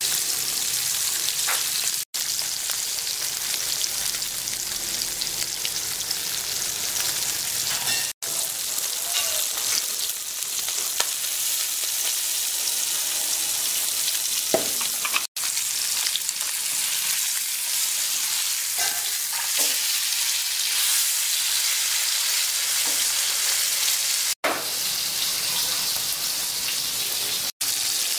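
Green-masala-coated mackerel (bangda) shallow-frying in hot oil in an iron kadai: a steady high sizzle with occasional crackles. The sound drops out for an instant several times.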